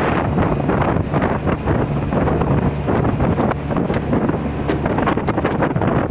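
Wind buffeting the microphone on a speed boat under way, over the steady running of the boat's engine.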